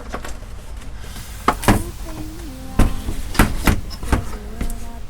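A handful of sharp knocks and clicks, several within about three seconds, from something hard being handled. About two seconds in, quiet music with held notes comes in.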